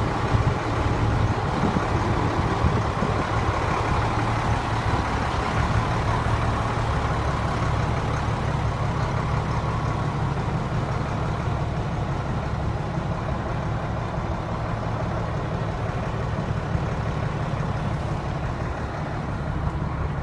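Diesel truck engine idling steadily, a low, even hum.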